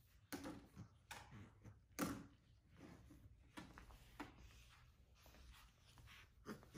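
Faint rustling of a quilt and bedding with a series of soft thumps as two capuchin monkeys wrestle and tumble on a bed; the loudest thump comes about two seconds in.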